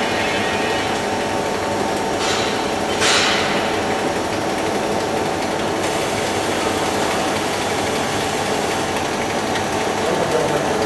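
Wet tube polishing machine running with a metal tube passing through its polishing head: a steady mechanical hum and hiss. Two short hisses come about two and three seconds in, the second louder.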